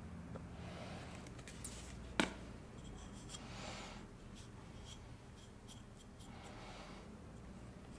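Faint handling sounds: a plastic glue bottle being squeezed and a fingertip rubbing glue over a wooden wedge in a chisel's handle eye, with small scrapes and light clicks. One sharp click about two seconds in is the loudest sound.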